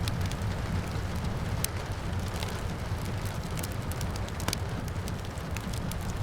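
Wood fire crackling with scattered pops, two of them sharper, over a steady low rumble and the hiss of rain.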